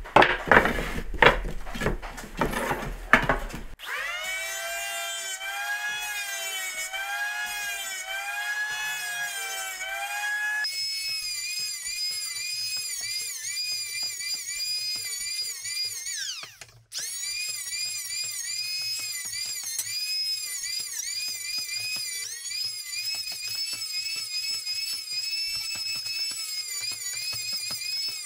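Wooden blocks knocked together and set down on a table for the first few seconds. Then an electric hand planer runs with a high whine that wavers in pitch as it shaves a wooden strip. About two-thirds of the way through, the whine falls in pitch and cuts out briefly, then the planer runs again.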